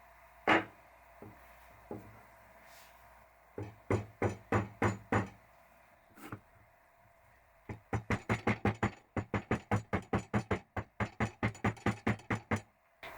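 Hand-tool work in quick, even strokes: five or six strokes about three a second, then, after a pause, a run of about twenty at about four a second.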